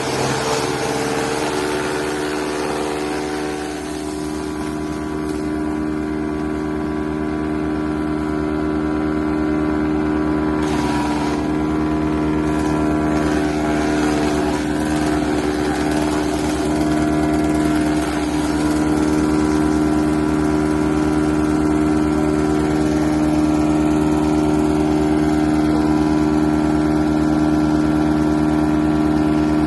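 Tractor engine running steadily at constant speed, driving a PTO-mounted wood chipper/shredder, with a steady hum of several tones. A brief noisier burst comes about eleven seconds in.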